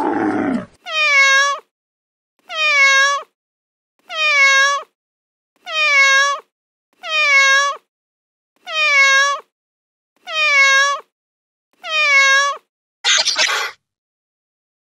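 An animal's high, meow-like call repeated eight times at even spacing, about every one and a half seconds, each falling slightly in pitch, followed near the end by two rougher, noisier calls.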